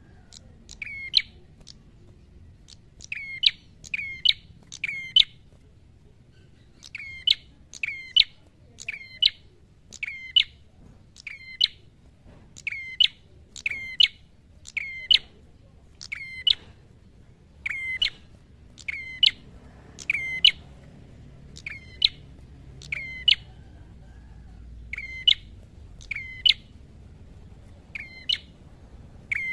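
Tailorbird (prenjak kepala merah) calling loudly and insistently: short, sharp, loud notes repeated about once a second, with a brief pause now and then.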